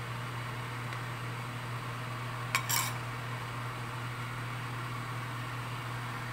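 A steady low hum and hiss in a kitchen, with a brief metallic clink of kitchenware about two and a half seconds in.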